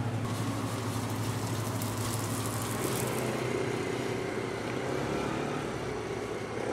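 City street noise: a steady low hum with traffic sound.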